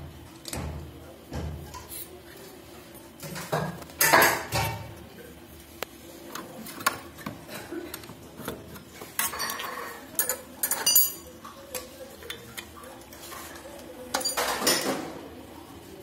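Scattered metallic clinks, taps and knocks from handling a brass gas torch head on a butane canister. There is a louder knock about four seconds in and a run of briefly ringing clinks around ten seconds in.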